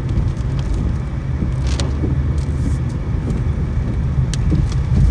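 Car on the move: a steady low engine and road rumble, with a few light clicks.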